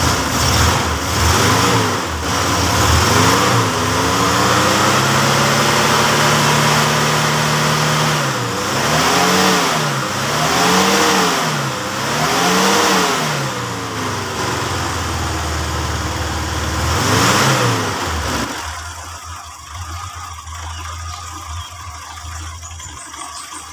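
A long-dormant carburetted car engine under the floor runs on jump-started batteries and is revved up and down over and over, with several quick blips of the throttle. About 18 seconds in, the revs fall away and the engine sound drops much quieter. It is running unevenly, which the mechanic takes for a dead spark plug or a dirty carburettor.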